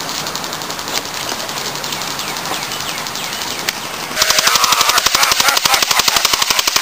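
Airsoft guns firing BBs in rapid full-auto, a fast even rattle of shots. The fire is fainter at first; about four seconds in, a close airsoft AK-47 replica takes over, much louder.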